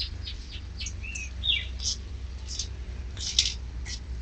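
Scattered short, high bird-like chirps, a few sliding down in pitch, over the steady low rumble of a wire shopping cart rolling across pavement.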